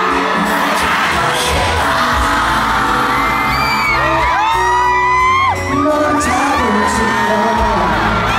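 Live pop concert sound: the backing music with a male singer's voice, and fans in the audience screaming over it in many short high-pitched cries.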